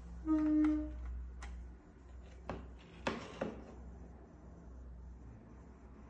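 Sintron ST-004 payment box giving one short electronic beep as its PayPal button is pressed, which starts it generating a PayPal QR code. A few light clicks follow about two and a half to three and a half seconds in.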